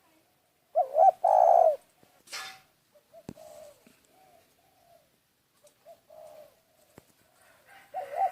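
A dove cooing. A loud two-part coo comes about a second in and again near the end, with softer coos between. A brief rustle and a couple of sharp clicks are also heard.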